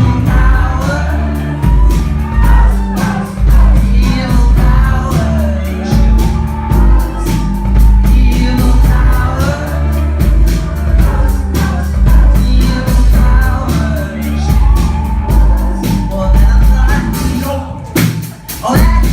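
Live band playing a song, with sung vocals over loud drums and bass.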